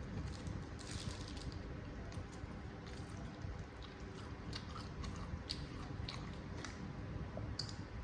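Close-miked chewing of mie nyemek, saucy Indonesian noodles, with scattered small wet mouth clicks.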